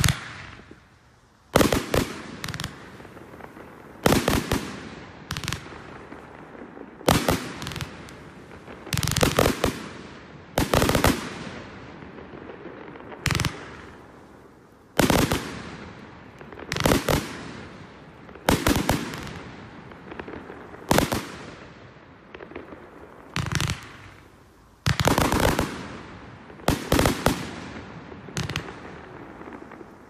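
Fireworks bursting: loud bangs, mostly in quick twos and threes every couple of seconds, each trailing off before the next.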